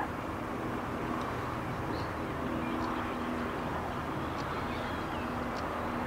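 Steady rumble of distant engine noise with a low, even hum, and a few faint, short high bird chirps scattered through it.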